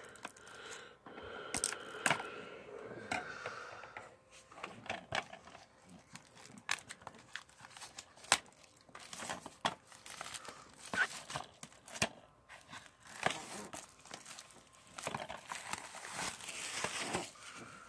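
Clear plastic shrink-wrap being cut open and peeled off a DVD case: irregular crinkling and tearing of the film, with many sharp little clicks and ticks as the plastic case is handled.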